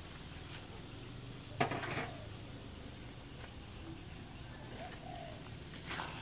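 A metal spatula knocks once, sharply, against a steel wok about one and a half seconds in, over a faint steady background with a few short faint chirps.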